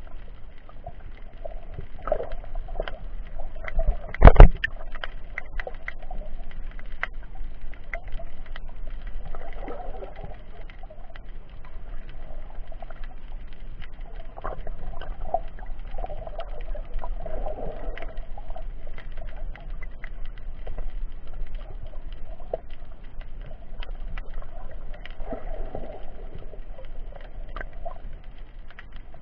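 Muffled underwater sound through an action camera's waterproof case: a steady water hiss with scattered sharp clicks and recurring dull swells lasting about a second. There is one loud knock about four seconds in.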